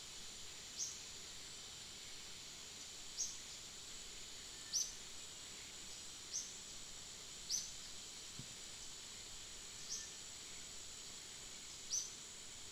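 Steady high-pitched insect drone, with a short high chirp every one to two and a half seconds, seven in all.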